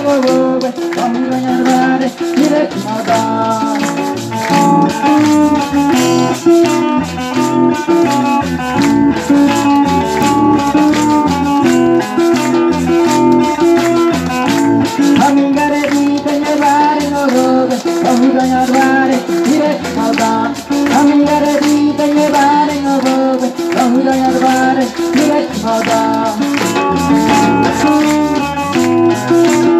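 A small live band playing amplified music with guitar, keyboard and drums, a busy rattling percussion beat running under steady sustained chords.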